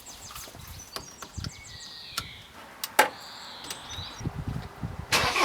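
Scattered light clicks and one sharp knock about three seconds in. Near the end a car engine starts and keeps running, the engine used for the jump-start.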